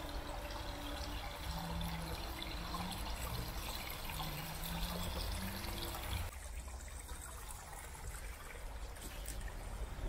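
Small brook running and trickling over its stony bed, a steady rush of water with a low rumble underneath; the water sound thins out a little about six seconds in.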